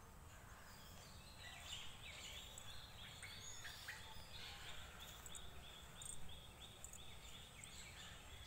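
Faint outdoor ambience with a bird calling a quick run of short, high, evenly repeated notes, about three a second. The calls start about two seconds in, with a few other chirps, over a low rumble.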